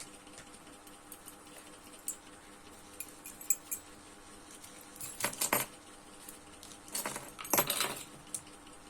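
Small hard objects clinking and rattling as they are handled, in two short bouts after a few scattered clicks, over a faint steady hum.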